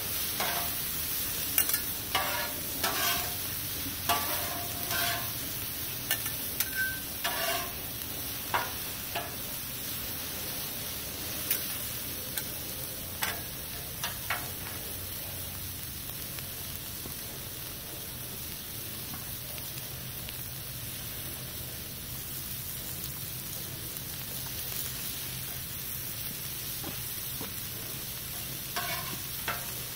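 Sliced peppers and onions sizzling on a Blackstone flat-top griddle, a steady frying hiss. Metal spatulas scrape and clack against the steel griddle top, often in the first half and again a few times near the end.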